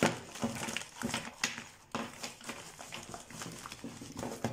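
A mailing envelope rustling and crinkling in short, irregular bursts as hands reach in and pull items out of it.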